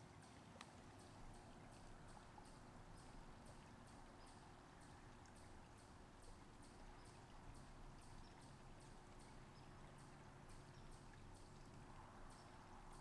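Near silence: faint outdoor ambience with a regular train of soft, high-pitched ticks, about two to three a second, over a low steady hum.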